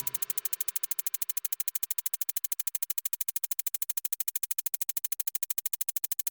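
Background music reduced to a fast, even pulsing, many pulses a second.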